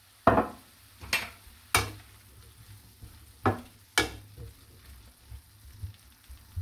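Spatula stirring green peas into flat beans in a cooking pan: about five sharp scraping knocks against the pan in the first four seconds, then lighter ones.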